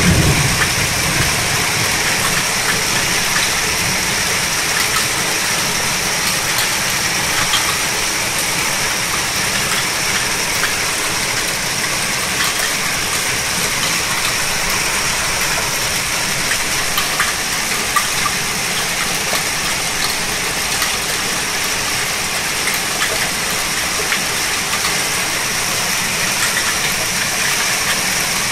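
Heavy downpour: a steady hiss of rain with water rushing through a flooded street, and scattered sharp ticks of drops striking close by. A low rumble fades out right at the start.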